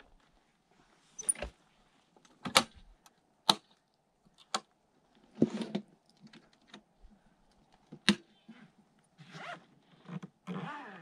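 Renogy 100-watt folding solar panel being folded and packed into its soft carrying case: about five sharp clicks and knocks from the panel's frame and stand, between stretches of softer handling and rustling of the case.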